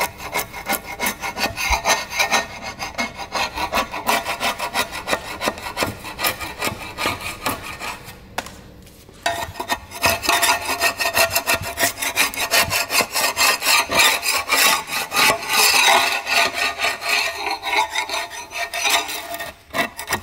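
Metal scraper scraping old gasket off the flange of a metal engine cover plate in quick repeated strokes, with a brief pause about eight seconds in.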